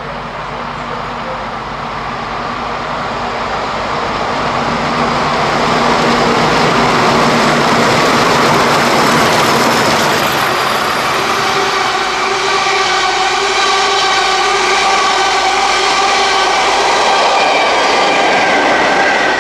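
Class 40 diesel locomotive with its English Electric 16-cylinder turbocharged engine working as it hauls a passenger train past. The sound builds over the first few seconds, then holds loud as the train passes, with wheel-on-rail noise and a set of steady whining tones in the second half.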